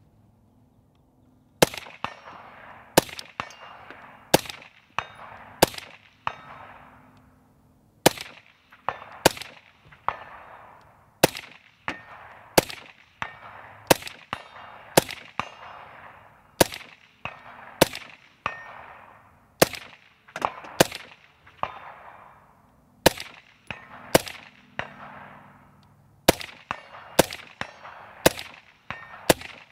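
Suppressed AR-15 in 6.5 Grendel firing a long string of shots, about one every second or two, starting after a second and a half. Many shots are followed about half a second later by the ringing clang of a hit on a steel target downrange.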